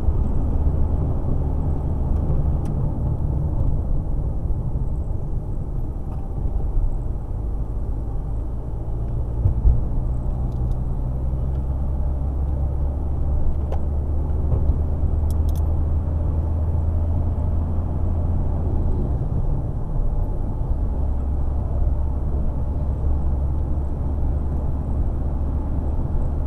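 Steady low rumble of a car's engine and tyres heard from inside the cabin while driving along a road.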